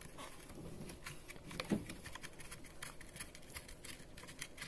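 Faint, irregular small clicks and scrapes of hands and tools working on a steam iron's plastic housing and metal screws while it is taken apart, with one slightly louder knock about two seconds in.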